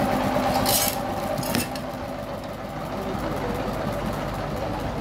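Sawmill engine running steadily at idle, with a short hiss a little under a second in and a sharp knock just after.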